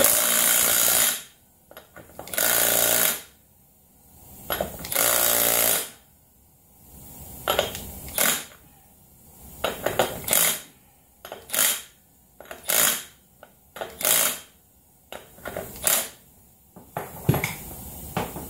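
Milwaukee Fuel cordless impact wrench hammering the rear axle nut of an ATV down tight in bursts. There are three longer runs of about a second each in the first six seconds, then about six short blips spaced a second or two apart.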